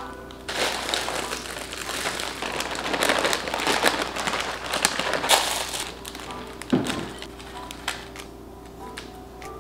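Plastic salad-kit bag crinkling and rustling as chopped kale salad is shaken out of it onto plates, then a small toppings packet being handled. The crinkling is loudest in the first six seconds and fainter after that.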